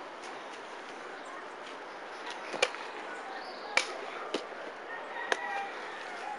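Four short, sharp knocks at uneven intervals through the middle, the first two the loudest, over a steady hiss.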